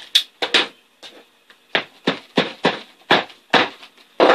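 About nine sharp knocks in quick, uneven succession: staples being driven and tapped home into the vinyl cover of a four-wheeler seat.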